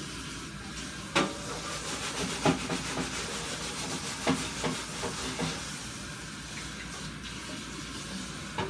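Kitchen tap running steadily while a pizza pan is rinsed under it, with a few knocks of the pan against the sink, the loudest about a second in.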